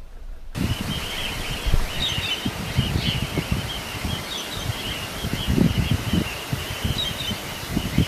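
A flock of wild cockatiels calling: a dense, continuous chatter of high chirping calls over a low, gusty, buffeting rumble. It starts abruptly about half a second in.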